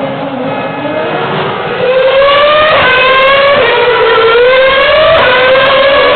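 Formula One car's 2.4-litre V8 engine at full throttle, accelerating past with its high scream climbing in pitch and dropping back at each upshift, about three gear changes. It grows loud about two seconds in.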